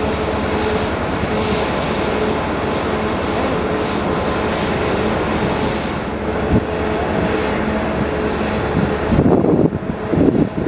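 Steady machinery roar with a constant low hum from a warship's funnel and ventilation while she lies alongside. Near the end, louder irregular low rumbles break in over it.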